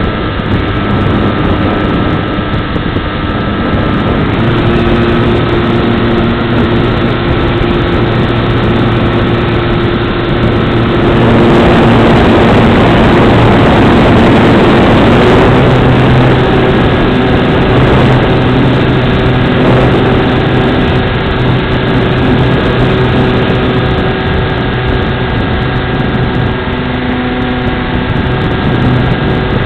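Motor and propeller of a large radio-controlled airplane running steadily, heard from close by on the wing with wind rushing over the microphone. Its pitch steps up slightly about four seconds in. From about 11 to 16 seconds a louder rush of wind swells over it during a steep bank.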